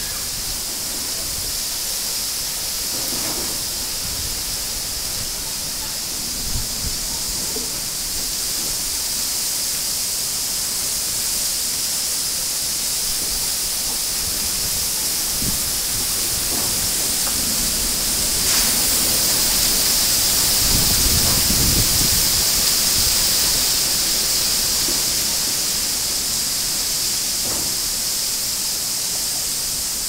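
Strong wind rushing through trees, a steady high hiss that swells slowly to a peak about two-thirds of the way through and then eases. Gusts buffet the microphone with a low rumble, strongest around the peak.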